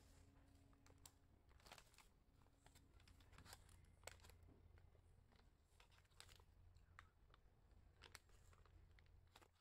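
Faint crinkling and rustling of a brown paper bag handled in the hands, heard as scattered soft crackles over a low steady hum.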